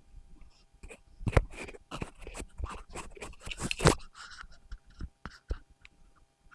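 Handling noise from the LENSGO 318D neckband microphone transmitter as it is picked up and fitted: a run of close clicks, scrapes and rustles, thickest in the middle and thinning out near the end.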